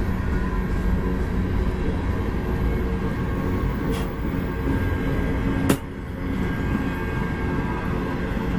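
Freight cars, a refrigerated boxcar and then empty flatcars, rolling past: a steady low rumble of steel wheels on the rails. There is a sharp click about four seconds in and a louder one just before six seconds.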